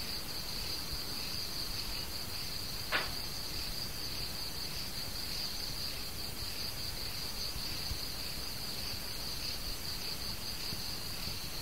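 Crickets trilling steadily in the background, over a low hiss of recording noise. There is a single brief click about three seconds in.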